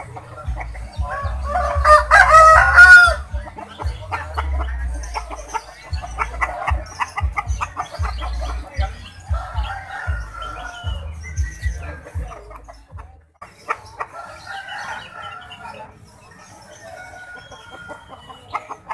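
A rooster crowing once, loud and short, about a second and a half in: the unusual crow that the uploader hears as the name 'Jokowi'. Shorter clucks and chicken calls follow, over a low rumble that stops about two thirds of the way through.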